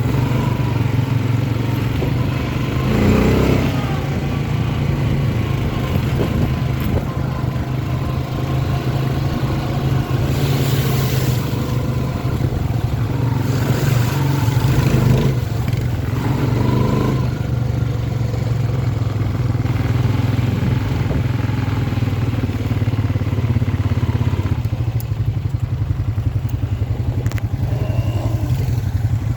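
ATV engine running at a steady low pitch, with short rushes of noise about ten and fourteen seconds in.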